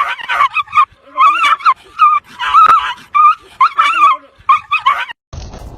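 Canines yelping and whining in quick high-pitched clusters, several calls a second. About five seconds in the calls cut off abruptly and give way to a steady rough noise.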